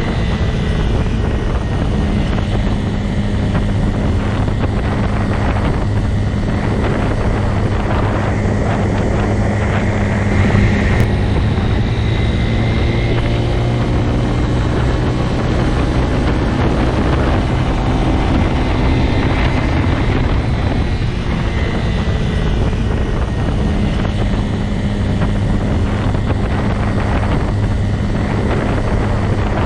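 Motorcycle engine running steadily with a low, even hum, its pitch shifting slightly now and then.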